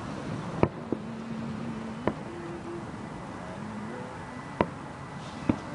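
Fireworks bursting in the distance: four sharp bangs a second or two apart over a steady outdoor noise.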